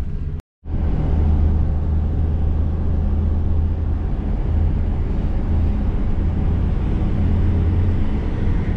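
Steady low rumble of a moving vehicle, heard after a brief dropout in the audio near the start.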